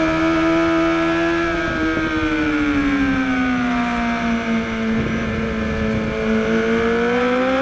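2013 BMW HP4's inline-four engine at racing speed, heard from onboard. The engine note falls smoothly as the rider rolls off the throttle into a corner, then climbs again near the end as he gets back on the gas.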